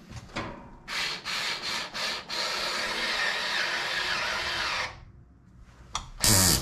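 Alloyman 4-volt cordless electric screwdriver running and grinding against a 2-inch screw in a wooden board: a few short bursts, then a steady stretch of about two and a half seconds that stops about five seconds in. The screwdriver lacks the power to drive the screw home. A brief loud sound comes near the end.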